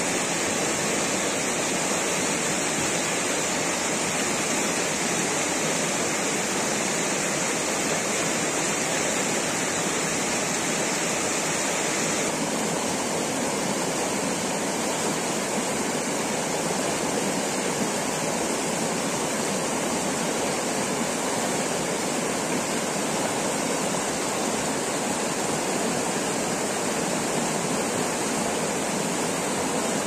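Fast, shallow mountain river rushing over rocks in white-water rapids, a loud, steady sound of water. Its tone shifts slightly about twelve seconds in.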